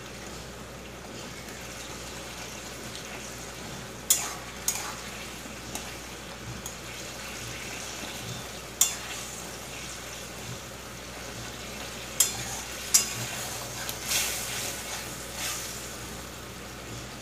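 Softened tomatoes frying and sizzling in a stainless steel kadai over a raised flame, stirred with a spatula that knocks and scrapes against the pan several times. This is the frying-down stage of tomato chutney.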